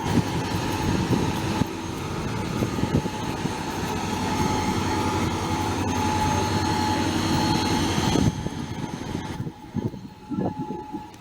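Train running through the station, a steady rumble with a held whine on top, dropping away sharply about eight seconds in as it passes.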